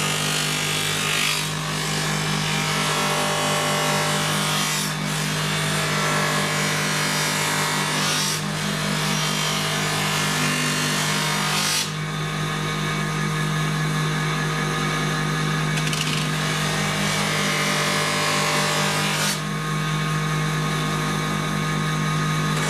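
Bench polishing motor running steadily with a constant hum, spinning a white buffing wheel that a wooden cricket bat is pressed against, giving a rubbing sound. About halfway the rubbing drops away and the motor runs on with a thinner whine, and the rubbing comes back near the end.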